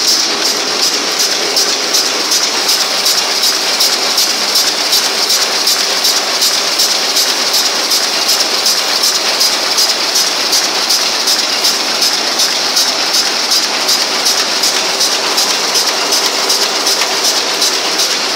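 W&D high-speed envelope making machine running steadily: an even mechanical clatter at about three beats a second over a steady hum from its rollers and drive.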